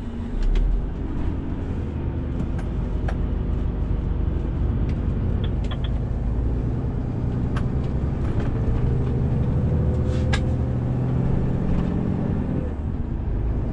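Renault T 460 truck's 11-litre six-cylinder diesel engine running as the truck drives, its pitch climbing steadily and then dropping sharply near the end. A low thump about half a second in.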